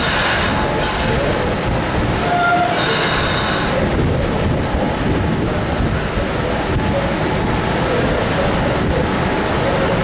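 Long Island Rail Road electric multiple-unit train running past close by: a steady rumble of wheels on rail, with wheel squeal for the first few seconds.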